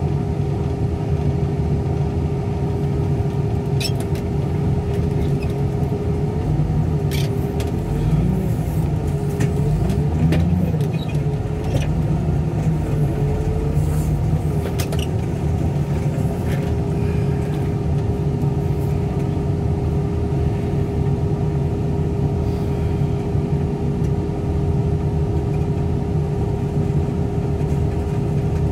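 Loader's diesel engine running steadily with a constant whine, heard from inside the cab. From about six to sixteen seconds in, the pitch dips and rises as the machine works, with a few sharp knocks.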